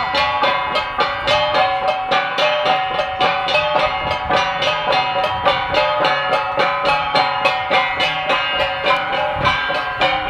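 Ensemble of flat bronze gangsa gongs struck with wooden sticks in a fast, steady rhythm of about four strokes a second. Their ringing metallic tones overlap and sustain between the strokes.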